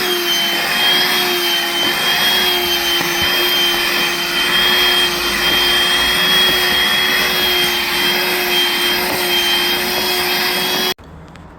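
An electric power tool running steadily with a high whine as it cuts the cat-flap opening in a door, stopping abruptly near the end.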